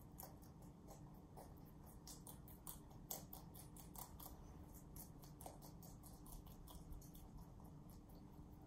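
Rabbits chewing leafy greens, a quick irregular run of soft, crisp crunches several times a second. The sharpest crunch comes about three seconds in.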